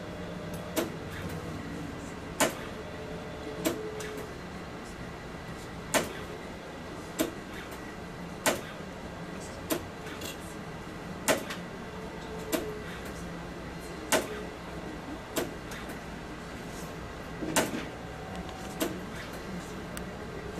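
ARTAS robotic hair-transplant system harvesting follicular units: a sharp click about every second and a quarter, each cycle dissecting one graft, with brief motor whirs between some clicks over a steady low machine hum.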